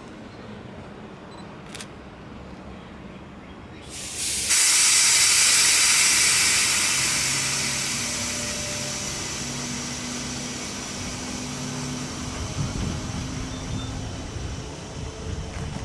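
Strasburg Rail Road No. 90, a 2-10-0 steam locomotive, venting steam: a sudden loud hiss about four seconds in that fades slowly over several seconds, with irregular low rumbling near the end.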